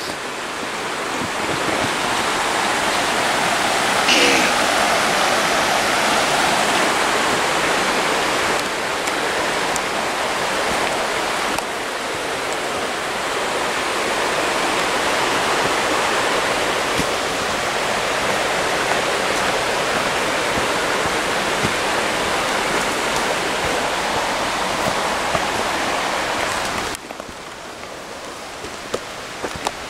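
River water rushing over rocks as a steady, even rush, which drops off sharply near the end.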